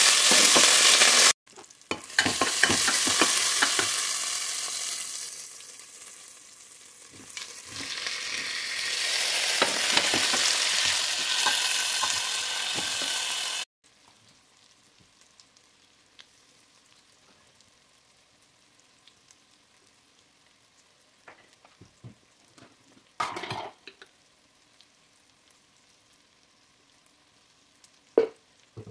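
Mutton and fresh coriander sizzling loudly in hot oil in a stainless steel pot, with the scrape of a stirring spoon. About halfway through it cuts to near silence with a few short knocks of a spoon against the pot.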